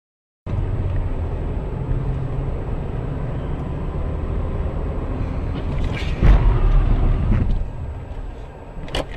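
Steady low rumble of a car driving on a wet road, engine and tyre noise as heard from the dashcam inside the car. About six seconds in comes a sudden loud thump, the loudest moment, and it fades over the next second. A sharp click follows near the end.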